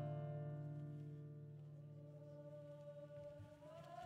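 Music: a held chord of several steady notes, slowly fading, with a new wavering note coming in near the end.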